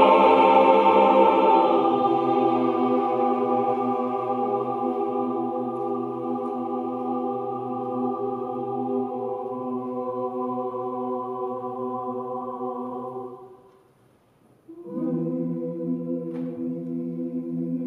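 Mixed choir singing a cappella, holding a long sustained chord that gradually grows softer. The chord breaks off for under a second about fourteen seconds in, and a new held chord follows.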